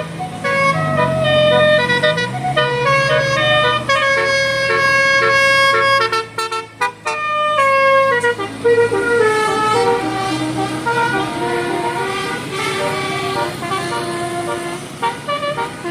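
Bus telolet horn playing a melody, one held note stepping to the next, over the low running of the bus engine. The tune breaks off briefly with a few stutters about halfway through, then carries on.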